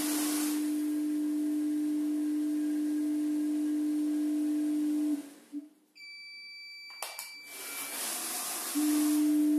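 Weighing and filling machine's feeder running with a steady hum for about five seconds while it weighs out a dose, then stopping. About a second later a long high electronic beep signals that the set weight is reached, followed by a brief rush of material dropping out into the bag, and the feeder hum starts again near the end.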